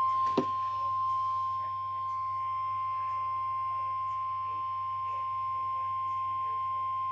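NOAA Weather Radio's 1050 Hz warning alarm tone, a single steady beep that starts abruptly, marking the start of an emergency weather alert broadcast. A sharp click comes about half a second in.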